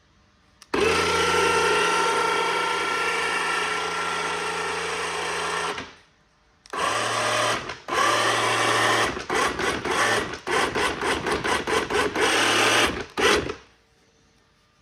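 A battery-powered electric winch (Makita battery) runs its motor and gearbox steadily for about five seconds, then stops. It starts again and, about halfway through, is switched on and off in a quick series of short bursts.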